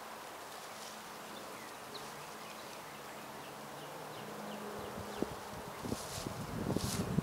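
A flying insect buzzing close by at a steady pitch. From about five seconds in come a few knocks and brief rustles, loudest near the end.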